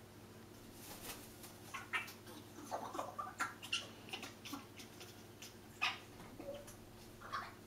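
Congo African grey parrot vocalizing: a run of short squeaks, chirps and clicks, starting about a second in and thinning out near the end.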